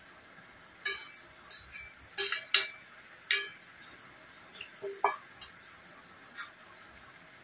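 Metal serving spoon clinking and scraping against a pan as curry is spooned out of it: a string of sharp clinks with a short ring, bunched in the first three and a half seconds and loudest about two and a half seconds in, then a few more further on.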